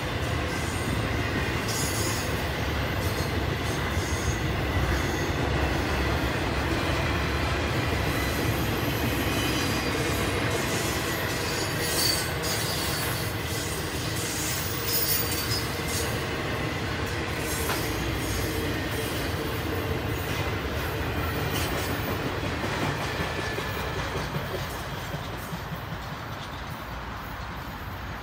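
Intermodal freight cars, trailers on flatcars and double-stack container cars, rolling past on steel rails: a continuous rumble of wheels on track with a thin wheel squeal and occasional clacks. It fades over the last few seconds as the end of the train moves away.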